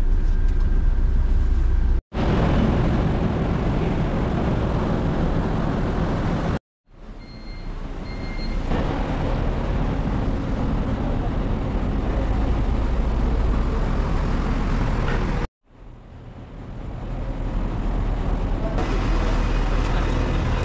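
Low, steady rumble of bus engines: first the drone inside a coach, then buses at a terminal. The sound comes in separate clips broken by short silent cuts, the later ones fading in.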